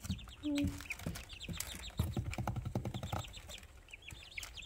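Young chickens peeping repeatedly: many short, high-pitched peeps, each falling in pitch, coming from several birds at once.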